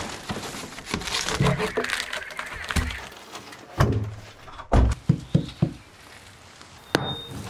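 Crackling and rustling in the first few seconds, then a run of heavy wooden thunks as thick planks are set down onto log supports, and a sharp knock near the end.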